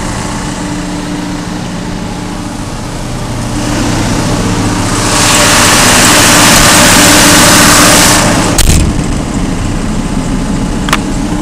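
John Deere 6068 six-cylinder diesel of a Wacker G160 generator set running steadily at its governed speed. It is louder through the middle while the sound-attenuated enclosure door stands open, then a door slam about three-quarters of the way in leaves it quieter, with a small latch click near the end.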